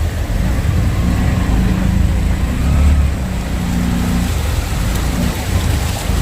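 Motor vehicle traffic close by: engines running in a low rumble, with one engine's steady hum standing out from about one to four seconds in.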